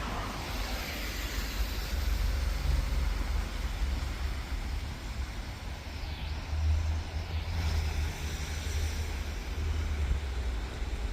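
Wind buffeting the microphone: a low, uneven rumble with a light hiss above it.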